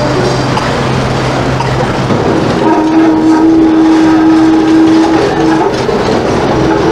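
Tram running on street track, a steady rumble and rattle of wheels on rails. Held steady tones sound over it, the longest from a little before the middle to about three-quarters through.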